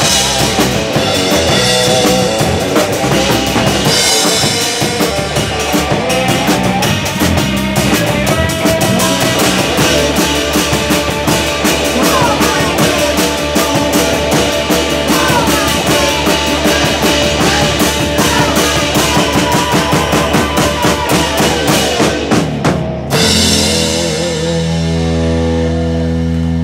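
Live rock band of electric guitar, bass guitar and drum kit playing loud, with driving drum hits. About 23 seconds in, the drums stop abruptly and a held guitar and bass chord rings on, closing the song.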